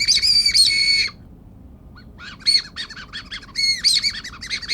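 Whistle candy blown like a whistle: a shrill, wavering note held for over a second, then a run of quick short toots and another held whistle near the end.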